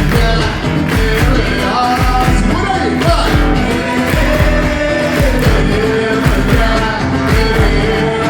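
Live carnival bloco music: a drum ensemble playing a steady, dense beat under singing.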